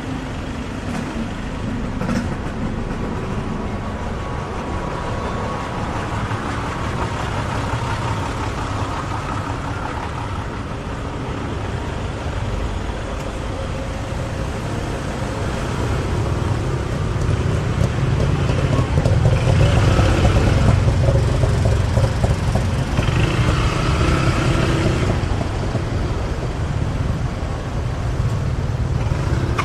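Busy city street traffic: car and motorbike engines running and vehicles moving close by in a steady wash of noise. A deeper engine rumble swells for several seconds in the second half, then eases off.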